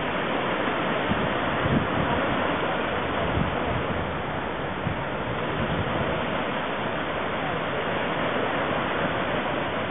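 Steady wash of small waves breaking along the shore, with wind noise on the microphone.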